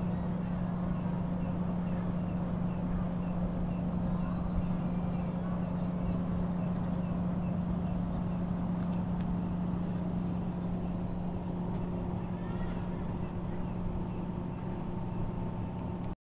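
Steady low hum of a stationary passenger train idling while it waits at a station. Over it runs a faint, evenly repeating series of high animal chirps.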